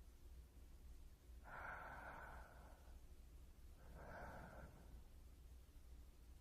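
Two faint, close-miked human breaths for binaural ASMR: one about a second and a half long, then a shorter one about a second later.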